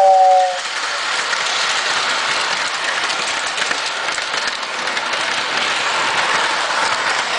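O-gauge model train: the locomotive's two-tone steam whistle sound fades out in the first half-second. A steady noise of the train running along the three-rail track follows.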